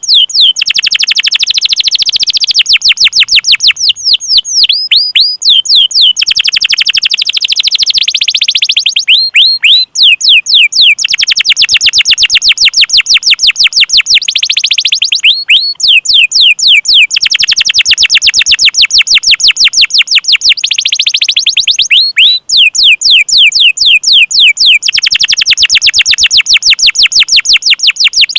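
A songbird's song played over and over for bird training: high trills of very rapid notes, each lasting one to two seconds, alternate with runs of quick upward-sweeping whistles. It is loud and continuous.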